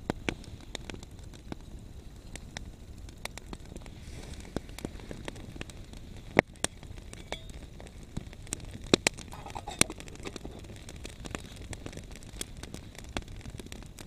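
Wood campfire crackling, with a steady low rush and many sharp, irregular pops and snaps; the loudest pops come about six and nine seconds in.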